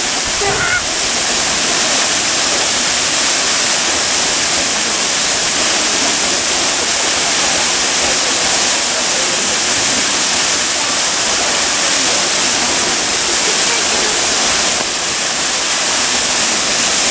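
Minoo Falls, a large waterfall, pouring down in a loud, steady rush of falling water.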